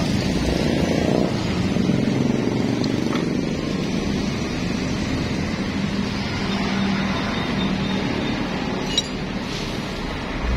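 Steady running of motor-vehicle engines nearby, with a low hum that swells in the middle. A short click comes about nine seconds in.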